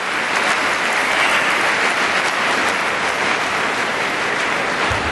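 Arena crowd applauding, a steady even clapping.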